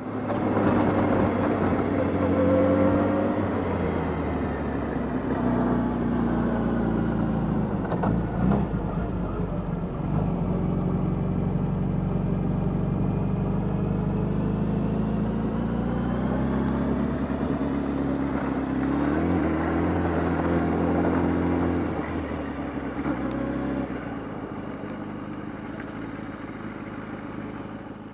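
Motorcycle engine running under way, its note rising and falling with engine speed, easing to a quieter, steadier run in the last few seconds.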